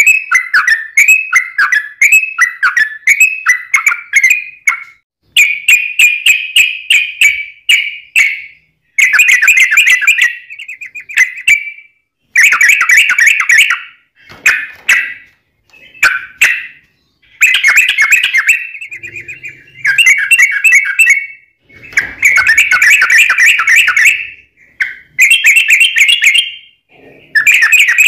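Yellow-vented bulbul (trucuk) singing: loud, rapid bubbly warbled phrases of one to three seconds each, following one another with only short pauses.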